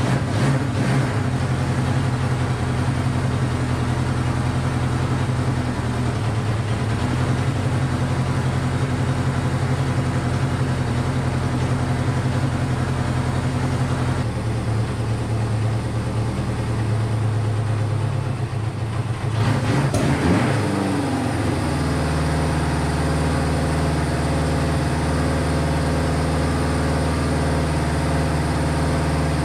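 Honda CB500 air-cooled inline-four engine running at a fast idle, firing on all four cylinders. Its beat changes about halfway through, then it dips and picks up in a short rev about two-thirds of the way in before settling into a steadier idle. It is hard to get to idle properly, which the owner suspects comes from low compression, the piston rings having stuck in their lands while the bike sat.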